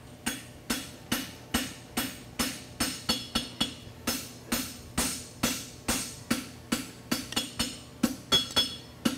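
A hand hammer strikes a red-hot, folded concave steel bar on an anvil in a steady rhythm of about two to three blows a second, quickening near the end. Each blow has a short metallic ring. This is the forging of the folded wedge of a horseshoe.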